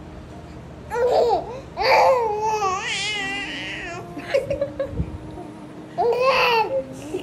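A baby cooing and laughing in three bursts of high, wavering squeals, the longest starting about two seconds in, while a woman laughs softly along.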